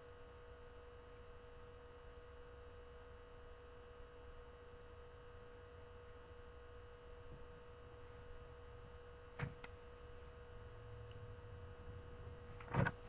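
Faint steady hum, a single unchanging mid-pitched tone over a low background rumble, broken by two short clicks: one about nine seconds in and a louder one near the end.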